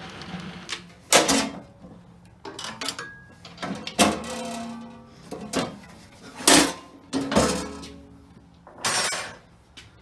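Metal parts of a jointer-planer clanking and knocking together as they are handled and fitted, about five sharp knocks, each ringing briefly.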